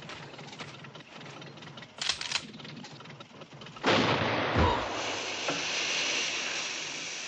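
A shotgun blast about four seconds in, followed by a steady hiss of escaping steam.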